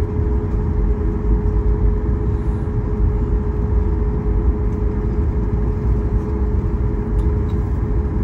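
Steady cabin noise inside a Boeing 737 MAX 8 on the ground after landing: a low rumble with a steady mid-pitched hum running through it.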